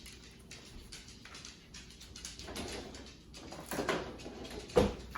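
Kitchen handling sounds at the stove: a few scrapes and knocks, with one sharp knock near the end as the loudest. Underneath, garlic and shiitake mushrooms fry in butter in the pan.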